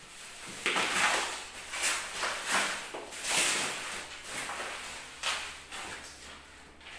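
Packaging rustling and crinkling in irregular swishes as items are handled and taken out of a box.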